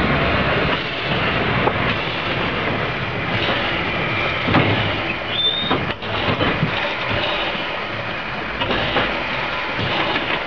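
LBSCR Stroudley A1 'Terrier' 0-6-0 tank engine passing close by, steam hissing from around its cylinders along with the mechanical clank of its wheels and motion. A brief high squeal sounds about five seconds in.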